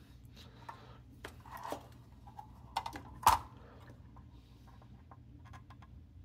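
Small scattered clicks and scrapes of a soldering iron's metal tip prying at the stiff legs of a large power transistor on a circuit board, bending them straight before desoldering, with one sharper knock a little over three seconds in.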